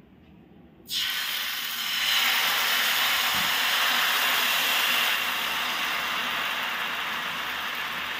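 Batter sizzling on a hot oiled tava griddle as a ghavan is ladled out and spread. The hiss starts suddenly about a second in and carries on steadily, easing a little toward the end.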